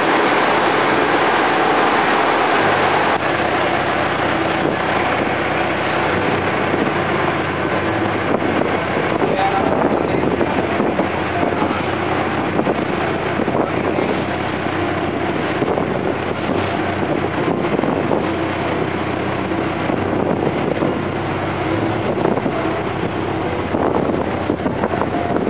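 Engines of a tin-mining suction boat running steadily and loudly, with wind buffeting the microphone.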